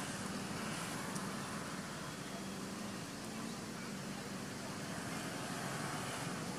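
Steady outdoor background noise with a low, even hum throughout.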